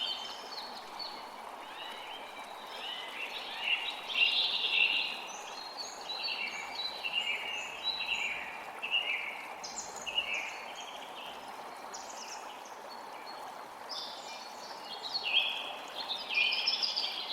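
Birds singing, a scatter of bright chirps and short trills that come in clusters, busiest about four seconds in and again near the end, over a steady rushing forest background noise.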